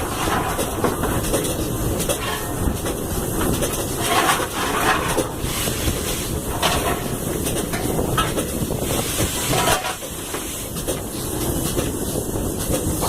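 Steam locomotive heard from its footplate, a GWR 94xx pannier tank, running along the line: a steady rumble and rattle with steam hiss and several louder rushes of noise.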